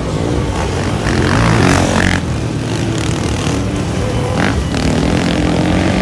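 A pack of motocross bikes racing up a hill off the start, many engines revving hard at once, with overlapping engine notes rising and falling as bikes pass; loudest about a second and a half in.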